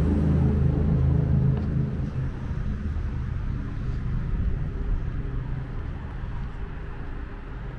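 Steady low rumble of city road traffic. A low, even hum of stacked tones runs under it for the first two seconds or so, then fades out.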